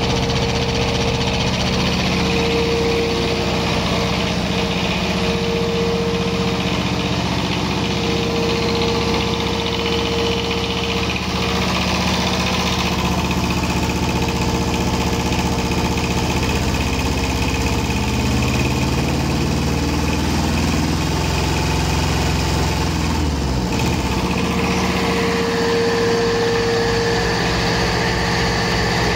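Thermo King TK270M diesel engine running on a test stand. It runs steadily at first, then its speed sinks over several seconds in the second half and it settles into a slower run with distinct firing pulses.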